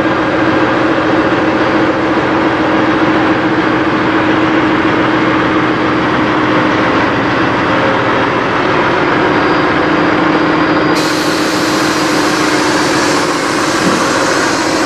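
Peterbilt semi truck's diesel engine idling steadily, with a constant hum running through it.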